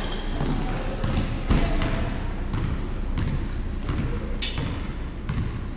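Basketball bouncing on a hardwood gym floor, with players' sneakers thudding and squeaking as they run up the court; one louder thud about a second and a half in.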